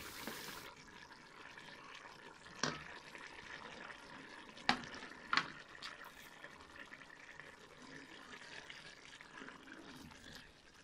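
Minced meat and yogurt simmering in a steel pot, a steady faint bubbling hiss as its liquid cooks off. Three sharp knocks against the pot come between about a third and half way through.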